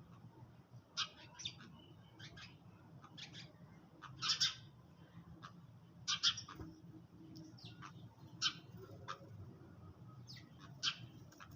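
Sparrows chirping: short, separate high chirps at irregular intervals, sometimes several close together, with the loudest calls about four and six seconds in.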